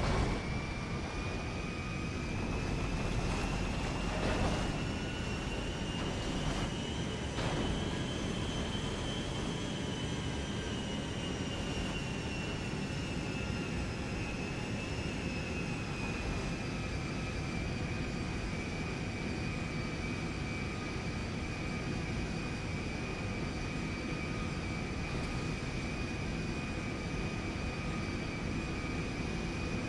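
Aircraft engine running steadily, with a high whine that climbs a little over the first eight seconds or so, then eases down and holds level.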